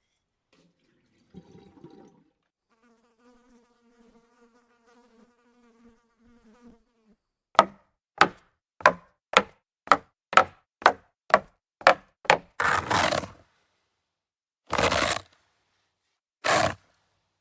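A string of separate sound effects: a faint, steady insect-like buzz, like a fly, then about ten sharp clicks, roughly two a second, and three short loud bursts of noise near the end.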